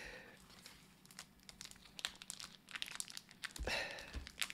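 Plastic and cardboard packaging crinkling and rustling in the hands as taped wrapping is picked at, in scattered short crackles. A denser burst of rustling and a couple of soft knocks come about three and a half seconds in, as the cardboard is pressed down on the table.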